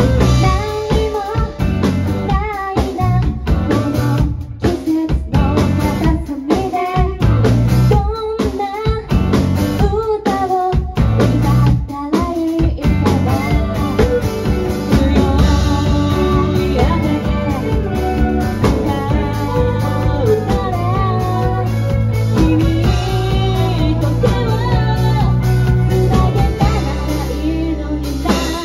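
Live rock band: a woman singing over electric guitars, bass guitar and a drum kit. For roughly the first twelve seconds the band plays in stop-start hits with short breaks between them, then plays on steadily.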